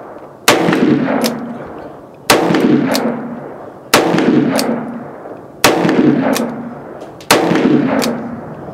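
Ruger Single-Seven .327 Federal Magnum revolver fired five times in slow, evenly spaced shots about a second and a half apart, each report trailing off, with a fainter sharp crack following each shot.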